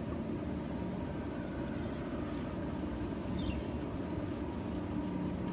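Steady low rumble of distant engine or machinery noise carrying over the lake, with a faint high chirp about three and a half seconds in.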